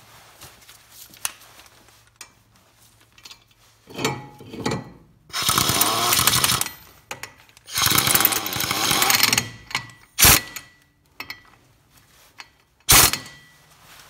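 Ingersoll Rand impact wrench hammering lug nuts onto the wheel studs to hold a brake rotor against the hub: two bursts of about a second and a half each, with shorter blips of the tool before and after.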